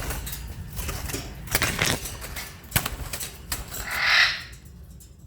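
Parrots moving about in a cage: wing flaps, rustling and scattered clicks of beaks and feet, then one short harsh squawk about four seconds in.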